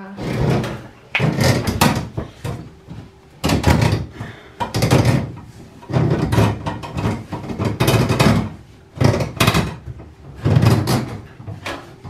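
Irregular knocks and scrapes, roughly one a second, from a shop-vac hose being worked in and out of a metal dryer vent duct.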